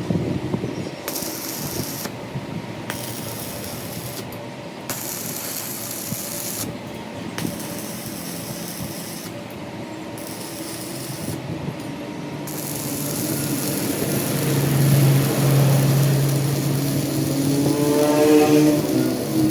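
Workshop power tools and machinery running, with the sound changing abruptly every second or two. About two-thirds of the way through a steady low motor hum comes in, and near the end a pitched whine rises.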